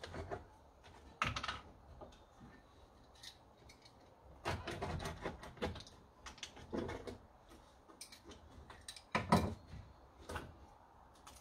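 Scattered clicks, taps and knocks of a plastic 5-litre coolant jug being handled and its cap opened, with short clusters of rustling; the loudest knock comes about nine seconds in.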